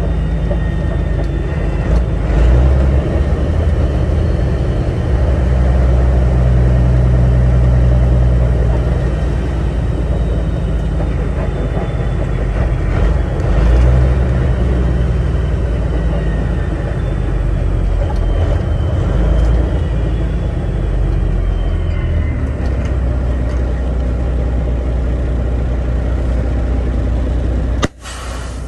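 Caterpillar diesel engine of a Peterbilt 389 heard inside the cab, its note falling and rising several times as the driver downshifts through the 18-speed manual transmission. Near the end the sound drops suddenly, with a brief sharp noise.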